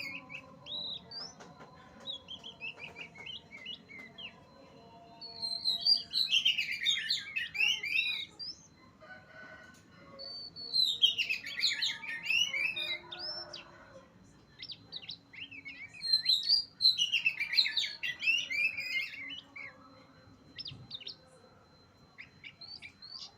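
Oriental magpie-robin (kacer) singing in full voice: loud bursts of rapid, varied chirping phrases, each two to three seconds long, coming about every five seconds, with scattered single notes between them.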